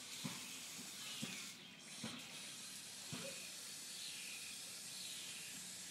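A steady outdoor hiss with a few soft low knocks, likely from the phone being handled, and faint short falling chirps every second or so.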